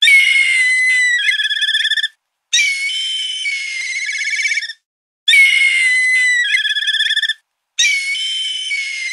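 Black kite calling four times. Each call is a high whistle sliding slightly down that breaks into a quavering trill, about two seconds long, with short silent gaps between calls.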